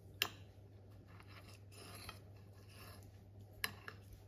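A stainless fork and knife cutting through soft baked eggplant with tomato sauce and mozzarella on a ceramic plate: soft scraping and cutting, with a sharp clink of metal on the plate near the start and another near the end, over a low steady hum.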